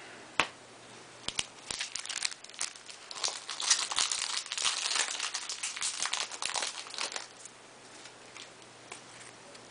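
Foil Yu-Gi-Oh booster pack crinkling and tearing as it is opened by hand. The irregular crackles are densest in the middle and die away about seven seconds in.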